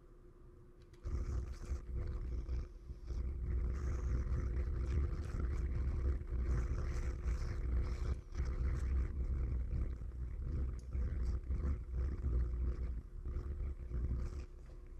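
Close-up handling noise: a low rumble with rough scraping and small knocks as hands work the display mount on the handlebar right by the microphone. It starts about a second in and eases off near the end.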